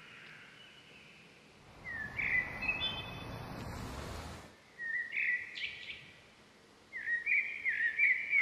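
A bird chirping in short, upward-swooping calls, in three bursts of song. A soft rush of outdoor background noise runs under the first burst and stops after a couple of seconds.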